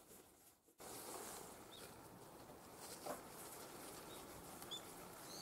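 Faint outdoor ambience after a moment of near silence at the start, with a few brief high bird chirps and a single faint click about three seconds in.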